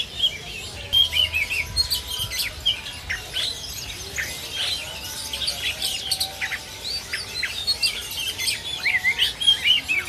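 Many caged songbirds chirping at once: a steady stream of short, quick, high calls and twittering glides that overlap.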